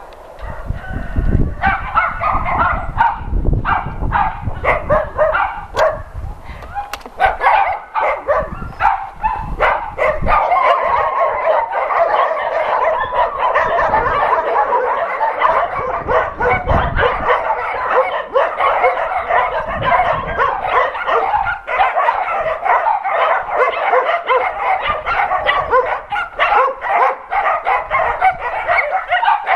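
A pack of kennelled shelter dogs barking together in a dense, continuous chorus of overlapping barks, starting about a second and a half in.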